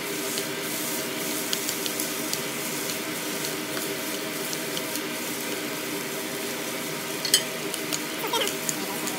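Food sizzling as it stir-fries in a pan, with a utensil stirring and scraping through it in small scattered clicks and a sharper clack about seven seconds in.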